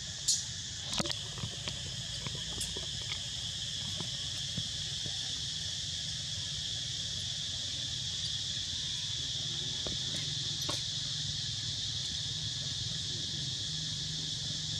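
Steady, high-pitched chorus of insects, with a low steady hum underneath and a few short clicks in the first few seconds and again about ten seconds in.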